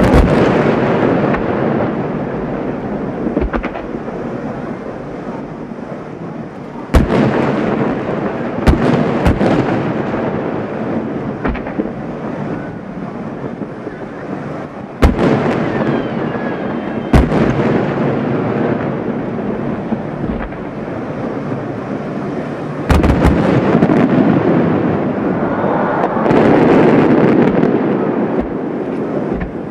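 Large aerial firework shells bursting, heard from several hundred metres away: about eight sharp booms, some in quick succession, over a continuous noisy rumble that swells near the end.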